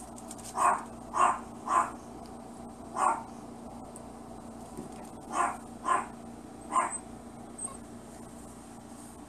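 Small black puppy barking: seven short, high, sharp barks, three in quick succession, then a single one, then three more.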